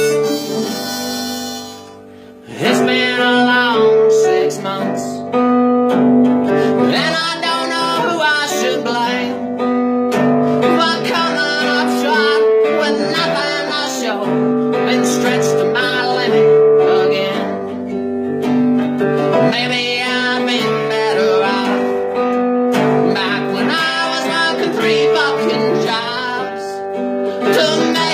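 A song played live on acoustic guitar, held chords with a wavering melody line over them, after a short dip in loudness about two seconds in.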